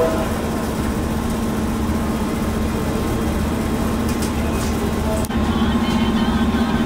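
Diesel engine of a wooden abra water taxi running steadily with a low drone. There is an abrupt break about five seconds in, after which it runs a little louder.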